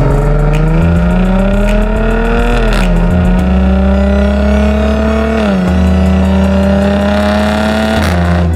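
Jaguar F-Type P340's supercharged 3.0-litre V6 accelerating hard through the gears. The engine note climbs steadily, then drops sharply at an upshift three times: about 3 seconds in, about 5.5 seconds in and near the end.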